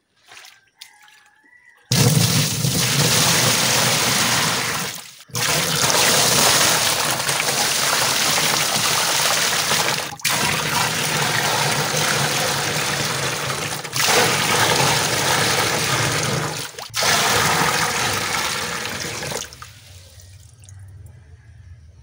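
Water poured in a heavy stream into a plastic refrigerator box already partly full, gushing and splashing. The pouring starts about two seconds in, comes in several stretches broken by short breaks, and stops a couple of seconds before the end.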